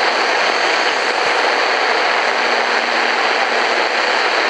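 Eton FR250 emergency radio's speaker giving out steady shortwave static, an even hiss, as the dial is tuned between stations.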